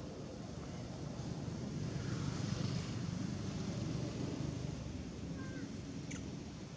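Distant engine rumble that swells over a couple of seconds and then fades, with a few faint short chirps near the end.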